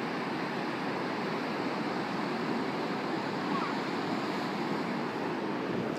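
Ocean surf breaking and washing onto a sandy beach: a steady, even rush of waves.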